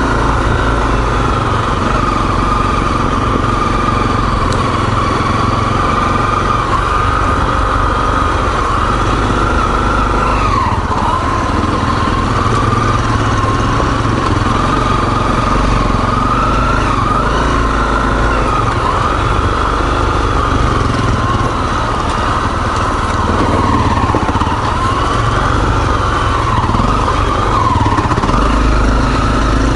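Single-cylinder four-stroke dual-sport motorcycle engine running steadily under way on a trail, its revs rising and dipping a little as the throttle is worked, over a constant low rumble.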